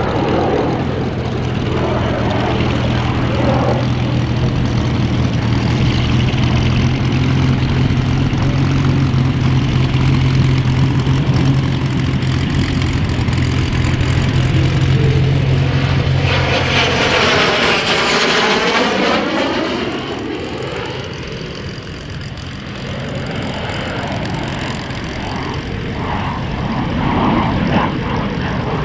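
Cessna A-37B Dragonfly's twin General Electric J85 turbojets during a display: a steady low drone, then a loud high-pitched flypast a little over halfway through, its pitch sweeping as the jet passes, fading to a rumble that builds again near the end.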